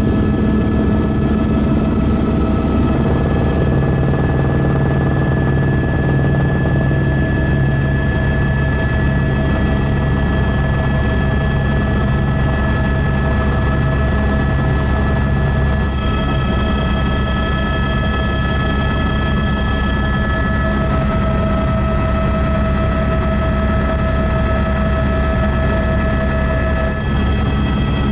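Helicopter in steady flight: a continuous deep rotor drone with several steady high whining tones from the engine laid over it.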